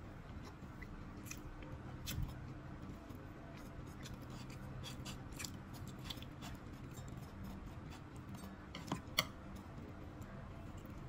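Scattered light clicks and taps of plastic chopsticks against a nonstick pan and each other as pieces of cheese pizza are picked up, with a sharper click about two seconds in and two close together about nine seconds in.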